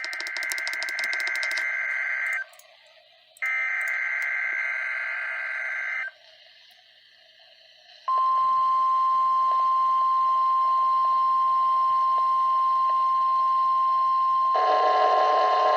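NOAA Weather Radio alert start: two warbling bursts of SAME header data, which encode the coming alert, then a single steady high beep (the 1050 Hz warning alarm tone) from about eight seconds in. A second, lower-pitched sound joins under the tone near the end.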